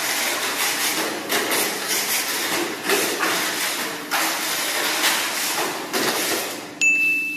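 Tamiya Mini 4WD car with a Mach Dash motor running laps on a plastic track: a busy rattling whir of motor, gears, wheels and rollers against the track walls, swelling and fading as it goes round. Near the end a sharp click, then a short steady high whine as the car is caught off the track.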